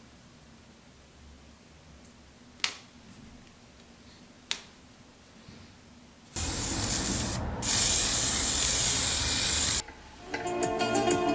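Two sharp clicks, then a loud spray hiss in two bursts, about a second and then about two seconds, with a brief break between them. Music with plucked strings starts near the end.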